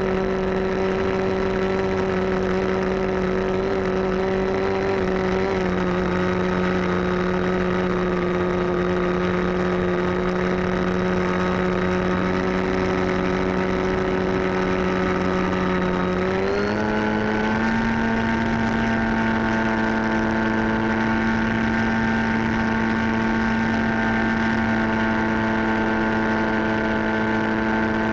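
An RC model airplane's motor and propeller running steadily, heard from a camera on board the plane. About two-thirds of the way through, the motor speeds up a little and then holds the higher pitch.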